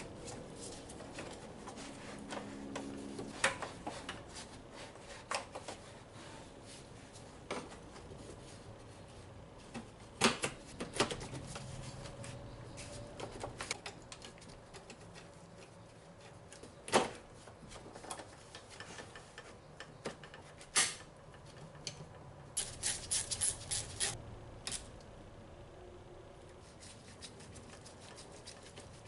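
Hand tools and metal parts clicking and knocking in scattered single strikes, with a quick run of rapid clicks about three quarters of the way through.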